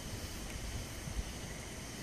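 Faint, low rumble of distant thunder under a steady outdoor hiss, with a brief low bump about a second in.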